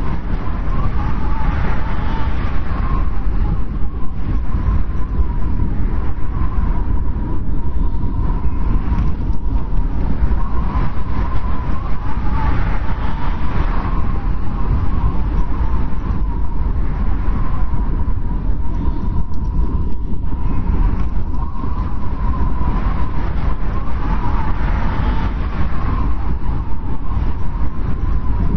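Snowstorm wind blowing steadily: a deep, constant rumble with a thin, wavering whistle riding over it, swelling and easing every few seconds.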